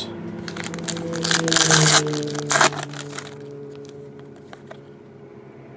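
Crackly rustling of card packaging being handled, loudest for a second or two, over a steady low droning tone that fades away.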